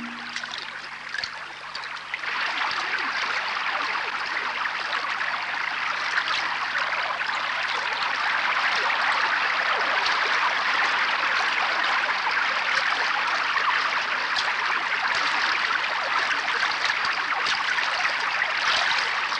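Steady rush of a shallow, fast-flowing muddy river, growing louder about two seconds in and then holding even.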